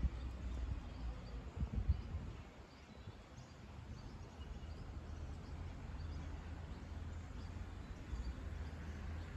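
Outdoor ambience: a steady low rumble with faint, scattered bird chirps, and a few low bumps between one and two seconds in.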